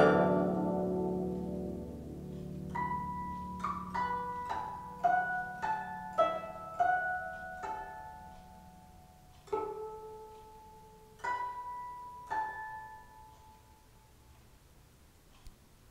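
Chinese zither music. A loud plucked chord dies away, then about a dozen single plucked notes ring out one after another, growing sparser and fading out near the end.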